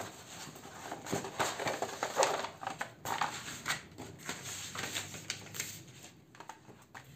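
Paper and cardboard rustling and scraping as hands press and rub a glued cardboard piece down onto a sheet of black paper, with irregular handling noises that thin out near the end.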